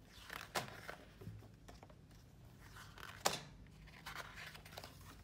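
Pages of a hardcover picture book being turned by hand. There are two quick paper swishes, one about half a second in and a louder one a little past three seconds, with faint rustling between.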